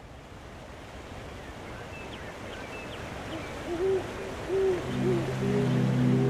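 Rain and rushing-water ambience fading in, with a few faint high chirps, then an owl hooting three times, short hoots about four to five seconds in. Soft sustained music chords begin under the last hoot.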